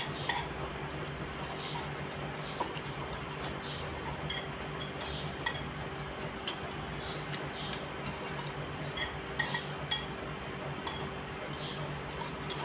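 A utensil beating egg with chopped vegetables in a glass bowl, clinking against the glass in quick, irregular taps, over a steady low hum.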